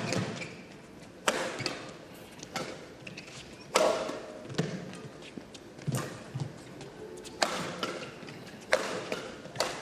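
Badminton rackets striking the shuttlecock back and forth in a rally: sharp cracks about every second and a bit, roughly nine in all, each with a short ring in the hall after it.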